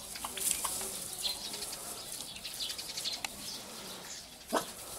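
Turkey poults peeping in many short, high notes, with one short, louder call near the end.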